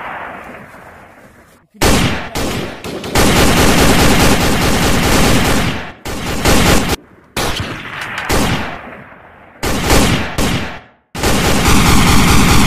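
Sound-effect machine-gun fire: several long bursts of rapid gunfire that start and stop abruptly, some fading away before the next burst begins.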